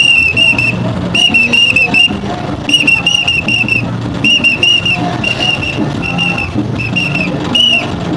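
A hand whistle blown in quick runs of four or five short, shrill blasts, the runs repeating about every second and a half, with single blasts near the end. Beneath it a crowd's voices.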